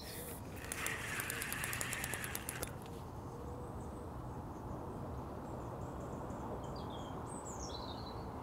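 A fixed-spool fishing reel whirs with rapid clicking for about two seconds while a hooked tench is being played. Afterwards birds chirp faintly over a quiet outdoor background.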